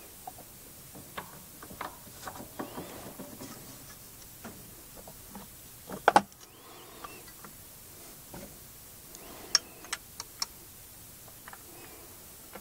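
Hand work on a small 2-stroke generator's exhaust parts: scattered light clicks and knocks of parts and tools being handled and fitted. The loudest is a sharp double knock about halfway through, followed by a quick run of sharp clicks a few seconds later.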